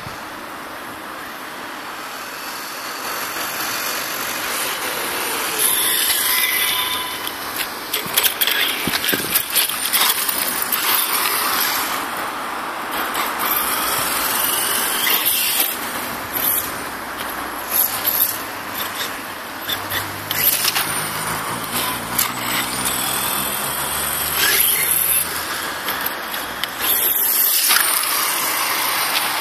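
HSP Brontosaurus Pro electric RC monster truck driving about on rough asphalt: its motor and gears whine, rising and falling in pitch with the throttle, with bursts of tyre and grit noise.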